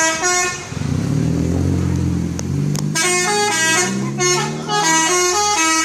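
Bus 'telolet' musical horn playing a quick tune of stepped notes, breaking off for a couple of seconds while a low engine rumble is heard, then starting the tune again about three seconds in.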